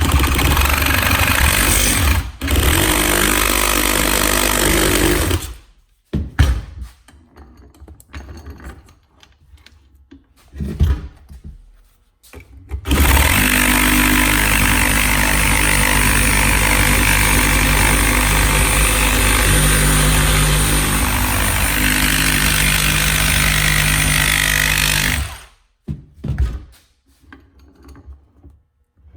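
DeWalt reciprocating saw with a Milwaukee Axe metal-cutting blade cutting through the thin steel can of a tractor oil filter clamped in a vise. It runs for about five seconds with a brief break near the start, then there are scattered knocks and clanks, then a longer cut of about twelve seconds that stops abruptly.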